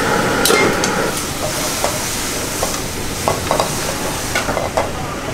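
Thick seafood sauce sizzling in a pan over a gas flame, with short scrapes and taps of a wooden spatula against the metal scattered through it.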